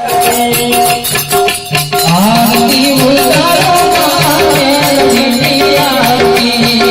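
Gujarati devotional aarti music: harmonium notes over tabla and rattling percussion keeping a steady beat, with a wavering melody line coming in about two seconds in.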